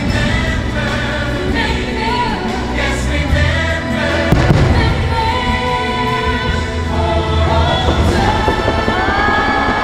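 Holiday show music with a choir singing, and fireworks banging and crackling over it now and then.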